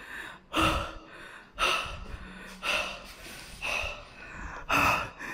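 A man breathing hard and loudly, about one breath a second: panting, out of breath after running off in fright.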